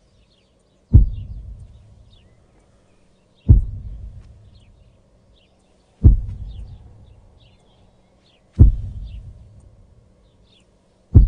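Deep booming low hits from a film score, one about every two and a half seconds, five in all, each fading slowly, with faint birdsong chirping between them.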